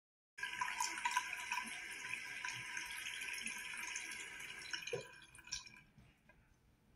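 Bathroom sink faucet running, water splashing into the basin, then shut off about five seconds in.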